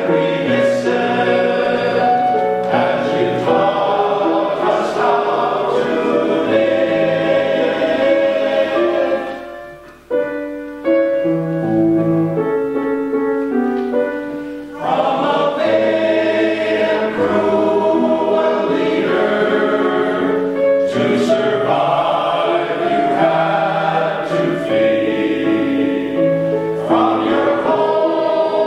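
Male choir singing in harmony. The singing breaks off briefly about ten seconds in, carries on more quietly for a few seconds, then swells back to full voice.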